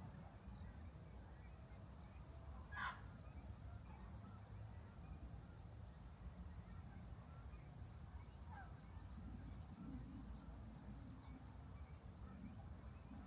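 A bird gives one short, sharp call about three seconds in, the loudest sound here, and a fainter, falling call near nine seconds, over a low steady rumble.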